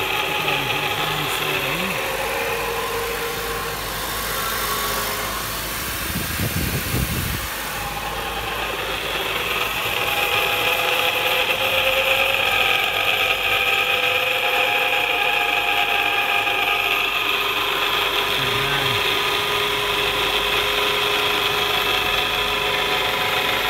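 Drive shaft center support bearing noise from a spinning drive shaft: a steady whine made of several tones over the running drivetrain, a bad bearing's noise. It grows somewhat louder about ten seconds in, with a short low rumble a few seconds before.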